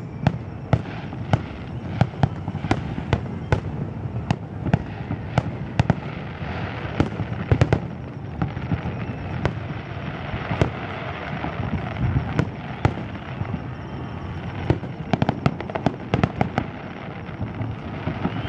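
Aerial fireworks display: an irregular series of sharp bangs from bursting shells over a continuous din. The bangs come thickest about fifteen to seventeen seconds in.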